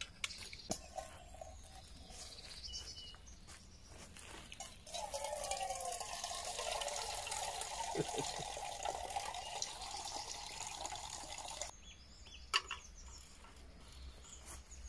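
Water poured into a metal camping mug for about seven seconds, its pitch rising as the mug fills, then stopping suddenly. A few sharp clicks of handling come before and after the pour.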